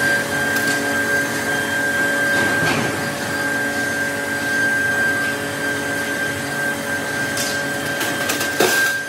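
Factory machinery running steadily with a high whine and a lower hum over a noisy mechanical hiss, with a couple of brief knocks, one about midway and a sharper one near the end.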